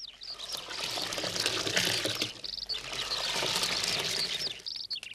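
Tea being scooped with a ladle and poured back into a wide pan, a splashing pour lasting about four seconds, with small birds chirping over it.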